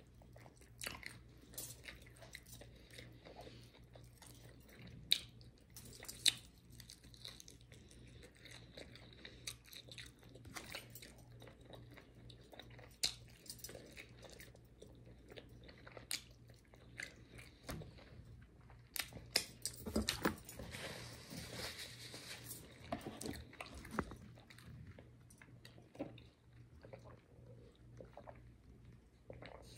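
Close-up chewing and biting into crispy fried chicken wings: irregular crunches and wet mouth clicks, busiest and loudest about twenty seconds in.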